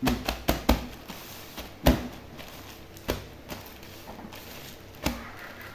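A series of irregular sharp knocks and taps from objects being handled and set down, about eight in all, with several close together at the start and the loudest about two seconds in.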